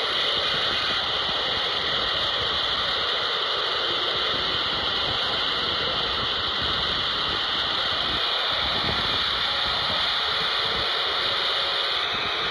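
Handheld scanner's speaker on 27.255 MHz AM putting out a continuous data transmission: a steady, high-pitched buzzing rush with no pauses.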